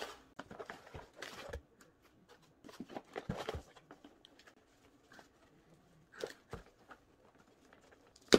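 Cardboard being handled: a smaller box scraping and rustling against the flaps as it is pulled out of a large corrugated shipping carton, with scattered taps and knocks and one sharp knock at the very end.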